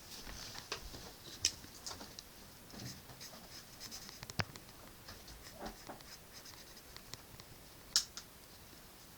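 Irregular scratches and light taps of a drawing tool on paper, with a sharper tap near the end.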